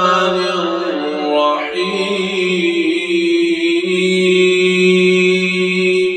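Quran recitation: one voice chanting in a slow, melodic, drawn-out style. It moves through gliding notes and then holds one long steady note that fades right at the end.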